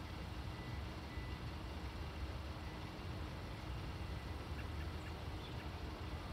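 Steady low outdoor rumble with a faint steady hum, and a few faint short bird chirps about five seconds in.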